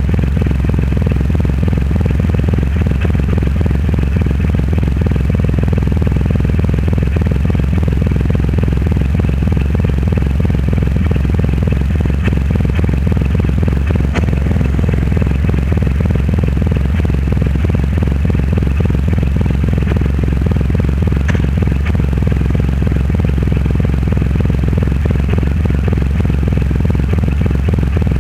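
Triumph Rocket III Roadster's 2.3-litre inline-three engine running through a custom exhaust at a steady, unchanging speed.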